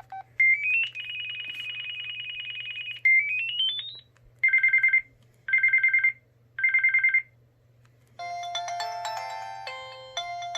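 Samsung SCH-A850 phone's built-in ringtones playing one after another through its speaker: a few short key beeps, a rising run of electronic tones into a warbling trill, another rising run, then three bursts of a classic two-tone telephone ring. About eight seconds in, a many-note polyphonic ringtone tune starts.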